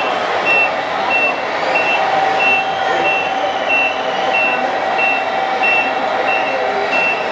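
A 1:14-scale RC model truck's sound module sounding its reversing alarm as the truck backs up a ramp. It gives short, high beeps at an even pace, about one every two-thirds of a second, over the busy noise of an exhibition hall.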